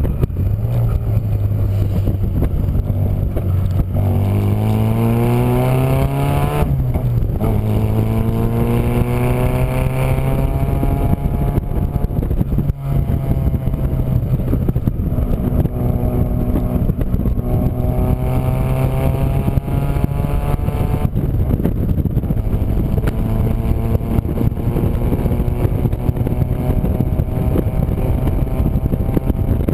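Austin-Healey Frogeye Sprite Mk1's 1290 A+ engine through a single-box RC40 exhaust, pulling up through the gears: the note climbs in pitch, breaks briefly at each of three upshifts, and climbs again. Wind and road noise rush over the open cockpit throughout.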